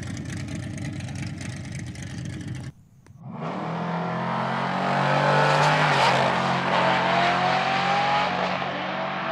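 Drag race car engines: a loud, rough-running engine, then after a short drop-out a race car launching down the strip. Its engine note climbs as it accelerates, loudest about halfway through, then slowly fading.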